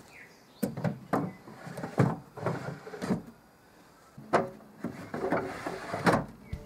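Wooden drawers being slid into a sapele-veneered chest of drawers and pushed shut: a run of about eight irregular wooden knocks with short sliding scrapes between them.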